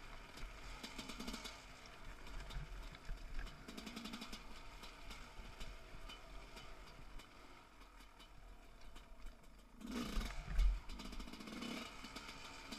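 300cc two-stroke enduro motorcycle being ridden over a rocky trail, the engine rising and falling with the throttle amid clattering from the bike over rocks and roots. About ten seconds in there is a short, louder burst of engine and clatter.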